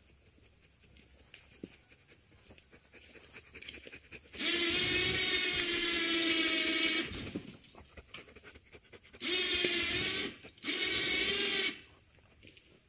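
A small electric motor whining at a steady pitch in three runs: a long one of about two and a half seconds, then two of about a second each, close together.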